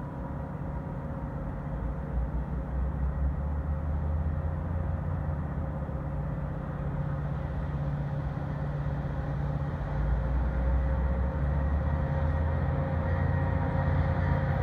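Metra F40PH-3 diesel locomotive approaching, its low engine drone growing steadily louder, with a step up about ten seconds in.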